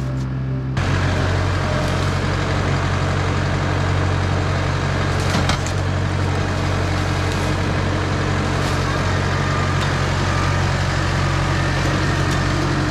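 Case IH tractor's diesel engine running steadily while the front-loader grapple pushes into brush and limbs, with a few sharp cracks of branches breaking about five seconds in.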